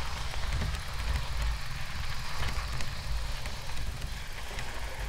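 Recumbent trike rolling and turning on a snow-covered road, its tyres, the rear one wrapped in tie straps for grip, hissing and crunching through the snow over a low, uneven rumble.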